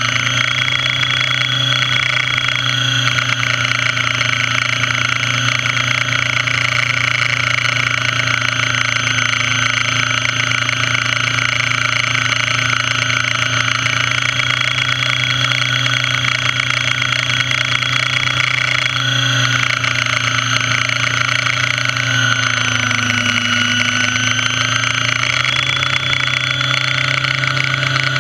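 Radio-controlled model helicopter's motor and rotors running in flight, recorded on board: a steady drone with high whining tones whose pitch shifts slightly a couple of times in the second half.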